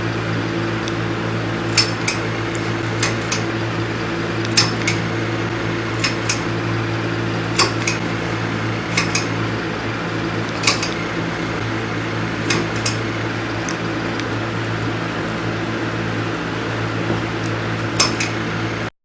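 A light switch flicked on and off again and again: about a dozen sharp clicks at uneven intervals, some in quick pairs, with a longer pause near the end. A steady low electrical hum runs underneath.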